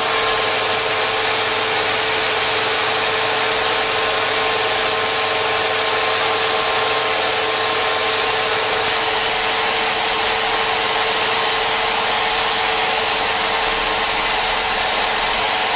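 Corded electric drill running at a steady speed, spinning a reel to wind kite string onto it: an even motor whine that holds one pitch throughout.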